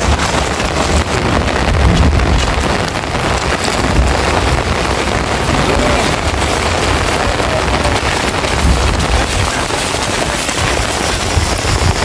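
Heavy rain pouring steadily: a dense, even hiss with a low rumble underneath.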